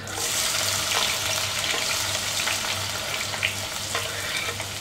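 Chopped onions dropped into hot oil in a wok, setting off a sudden loud sizzle that eases off slowly into steady frying, with scattered pops.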